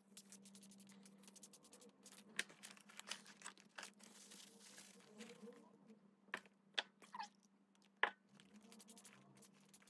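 Very faint handling sounds of paint and paper being worked on a journal page: scattered small clicks, taps and rustles over a low steady hum.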